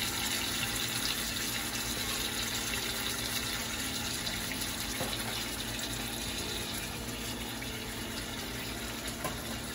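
Marinated chicken leg pieces sizzling steadily in a little hot oil in a pan, with a couple of faint clicks.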